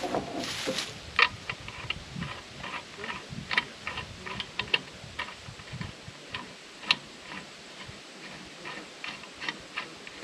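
Metal hose fittings clicking and tapping as a hose end is threaded onto the brass adapter on a water pump's port: irregular sharp clicks, one to three a second, after a short rustle of the hose at the start.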